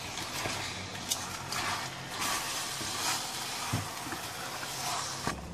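Wooden spatula stirring raw chicken pieces into thick spice paste in a stainless steel pot, in irregular scraping strokes with a couple of sharp knocks, while the paste sizzles in its oil over the heat.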